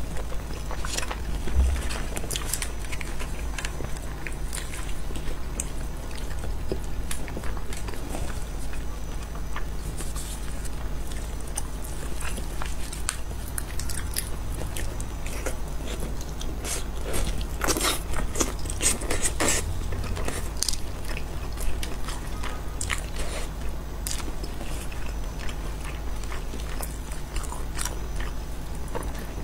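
Close-miked eating of a spicy roast chicken: chewing and biting the meat while it is pulled apart by plastic-gloved hands. Many small clicks throughout, with a cluster of louder crackles a little past halfway.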